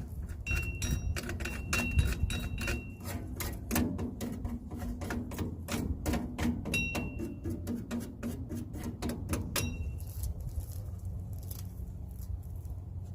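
Rapid clicking and rattling of metal brake parts and hand tools being worked on a drum brake, with short high squeaks, stopping about ten seconds in. A steady low hum runs underneath.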